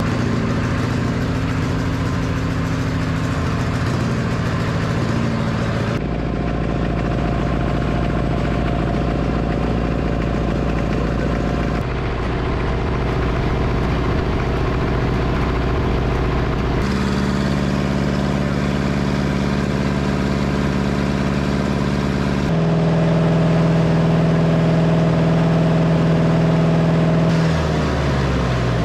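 1960 John Deere 1010 crawler's four-cylinder diesel engine running steadily through a heat cycle, heard in several short segments with abrupt changes of tone between them. Near the end its pitch falls as the engine slows.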